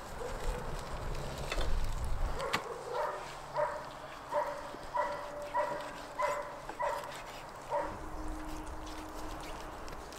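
A dog barking in an even series of about ten short barks, a little over half a second apart, that starts a few seconds in and stops near the end. Before the barking there is some low rumbling and a couple of sharp clicks.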